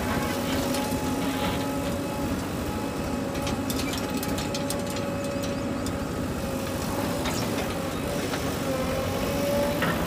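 Diesel engines of a JCB 3DX backhoe loader and a farm tractor running steadily, with scattered light clicks partway through.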